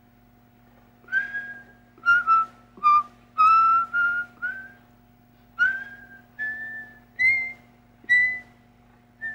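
A man whistling a short tune of about a dozen separate notes, several sliding up into their pitch, with a steady low hum underneath.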